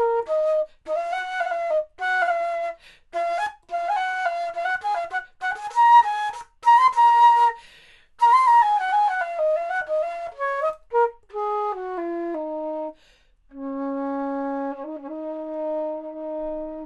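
A 3D-printed plastic baroque flute (traverso), a copy of a Bizey, played with its lower baroque-pitch middle joint fitted. It plays runs of quick notes broken by short breaths, then holds one long low note near the end.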